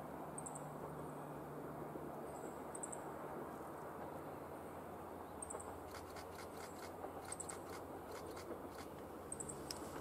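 Distant KiHa 40 diesel railcar running along the line, a low steady drone. A series of sharp clicks starts about six seconds in as the railcar comes round the curve. A faint high chirp repeats about every two seconds.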